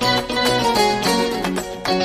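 Background music led by a plucked string instrument playing a quick run of notes.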